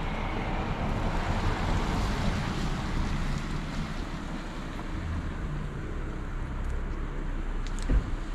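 Street ambience on a wet road: a steady rush of traffic noise with wind rumbling on the microphone, swelling briefly about a second in, and a short thump near the end.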